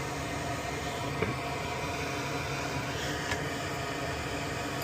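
Steady whir of a small electric fan or blower running, with two faint clicks.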